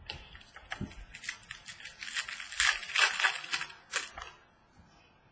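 A trading-card pack wrapper being torn open and crinkled by hand: a quick run of crackling rustles from about a second in until about four seconds, then faint handling of the cards.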